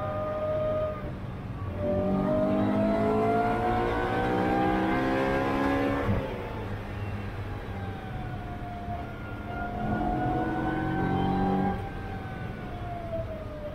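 Track car's engine heard from inside the cockpit under hard acceleration, climbing in pitch for about four seconds. It drops off suddenly when the throttle comes off, then builds again and falls away once more near the end.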